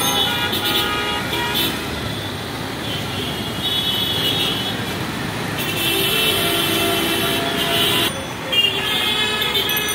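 Dense, jammed street traffic: engines of cars, auto-rickshaws and motorcycles running, with vehicle horns honking again and again. The longest horn blast comes in the second half, and several horns overlap.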